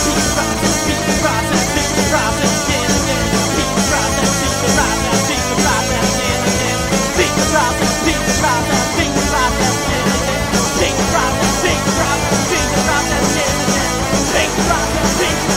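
Punk rock song played loud by a full band.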